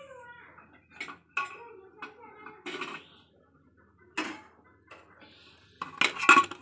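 An aluminium pressure cooker's lid being worked open after cooking: a faint steam hiss stops just after the start, then a series of separate metal clinks and knocks, and a louder metal-on-metal clatter near the end as the lid comes free.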